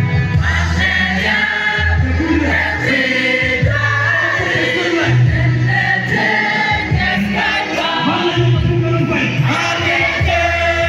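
Church choir singing a gospel song, many voices together over a low bass line.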